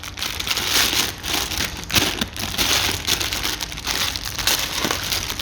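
Packaging being opened and handled, with continuous crinkling and crackling to get the new wheel bearing out.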